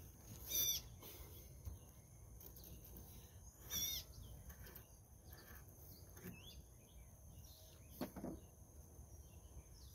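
Outdoor ambience: small birds chirping a few short times, the loudest near the end, over a steady high insect drone.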